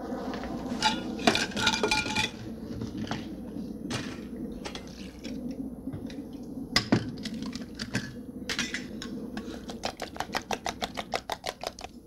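Kitchenware clinking and knocking, then a utensil beating rapidly against a metal mixing bowl, at about seven even strikes a second through the last few seconds.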